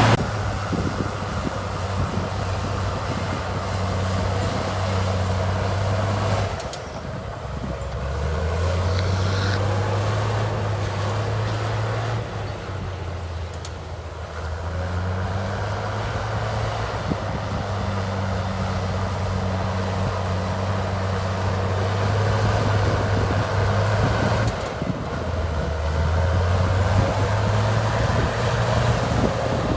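Heavy diesel engine of an earthmoving machine running under work, its engine speed dropping and picking up again several times, about every few seconds.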